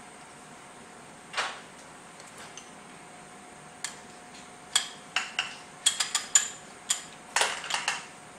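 Metal tools and parts clicking and clinking as the pull-start cover is worked back onto a small outboard motor: a soft knock about a second and a half in, then a quick run of sharp clicks through the second half, over a faint steady hum.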